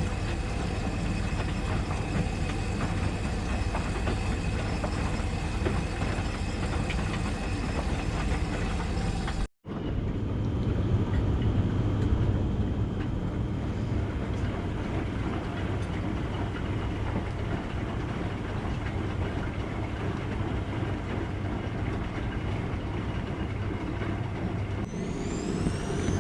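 Washing machine running, a steady low hum with churning noise. A rising whine begins near the end.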